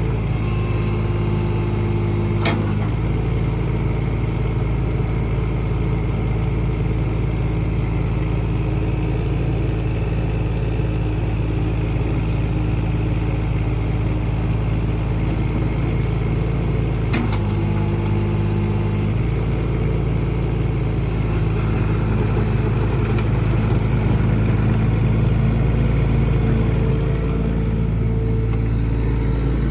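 Takeuchi TB014 mini excavator's diesel engine running steadily, with a sharp click a couple of seconds in and another about halfway through, the engine note shifting around each.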